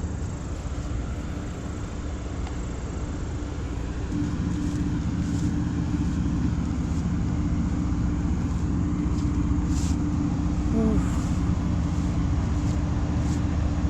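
An engine running steadily, a low hum that grows louder about four seconds in.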